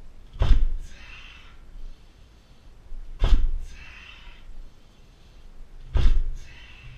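Three heavy thuds about three seconds apart, each followed at once by a sharp hissed exhalation: Muay Thai kicks thrown with a forced breath on each strike.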